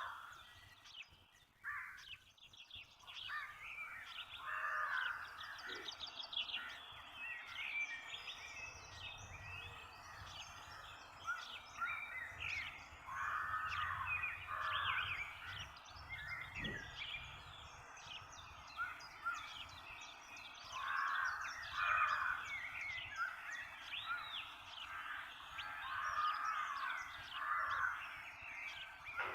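Dawn chorus: many birds chirping and calling over one another, with louder, harsher calls repeated every few seconds.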